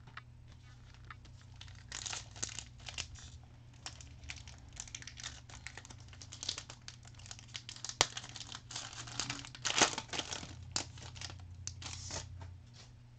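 Hands tearing open and crinkling the foil wrapper of a pack of basketball trading cards, in irregular bursts of crinkling that start about two seconds in, with one sharp click about eight seconds in.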